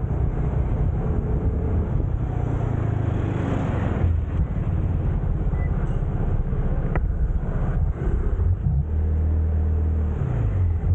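Motor scooter engine running steadily while riding, with road and wind noise over it; the engine note rises and then falls late on.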